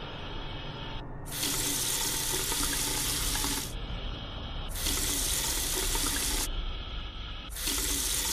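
Tap water running and splashing into a sink as someone washes, during ritual ablution (wudu). It comes in three loud spells of about two seconds each, with a softer flow in between.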